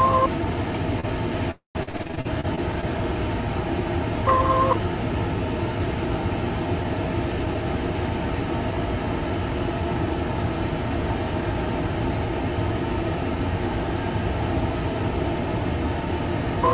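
Steady low mechanical rumble and hum of food trailer kitchen equipment. The sound cuts out for a split second about one and a half seconds in, and a short tone sounds about four seconds in.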